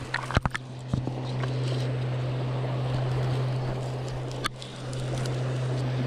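River water running over a shallow riffle with a steady low hum beneath it, and a few sharp clicks near the start and once more about four and a half seconds in.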